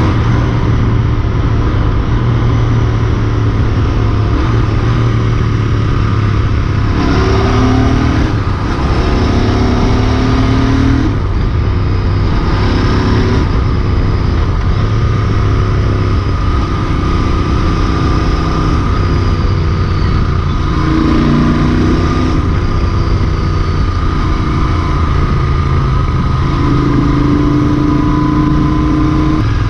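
Royal Enfield Interceptor 650 parallel-twin engine running hard on the open road, with wind noise over it. The engine pitch rises and falls a few times, about seven to thirteen seconds in and again around twenty to twenty-two seconds, as the throttle and gears change.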